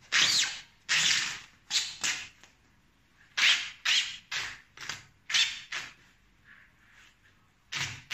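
Synthetic shell fabric of a quilted down jacket being ripped open, a quick series of short rasping rips in two runs with a pause about six seconds in.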